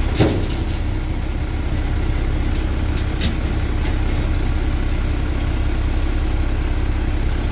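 Heavy diesel engines running steadily at idle, a low rumble with a constant hum, heard from inside a dump truck cab while an excavator loads the bed. A brief falling whine at the start, and a faint clank about three seconds in.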